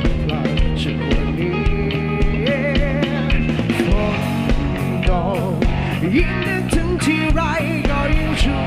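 Rock music with a drum kit, guitar and a wavering lead melody line, playing steadily and loud.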